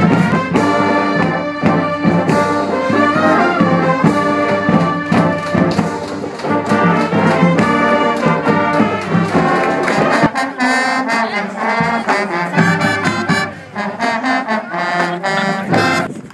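School band's brass section playing a tune, with trombones and trumpets out front. The band stops briefly just before the end.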